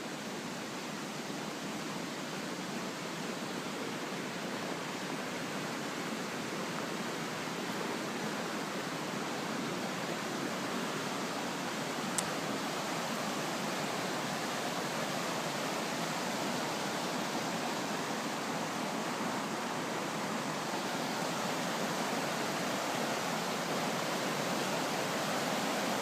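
Flood-swollen river rushing through the flooded campground, a steady, unbroken rush of water. One faint click about halfway through.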